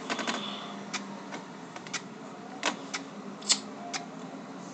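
Small hard plastic clicks and taps at an irregular pace, about a dozen, as hands squeeze a small glue tube and press it against plastic toy gun parts. The loudest clicks come a little over halfway through.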